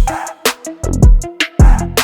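Background music with a heavy electronic drum beat: deep kick-drum thumps and sharp hi-hat strikes over sustained bass notes.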